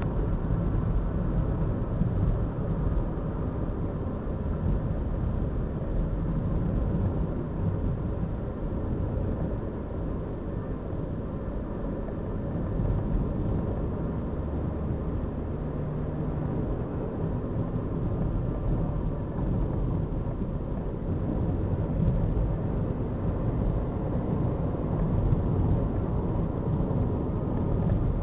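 Steady low rumble of wind and motion noise buffeting the microphone while moving along.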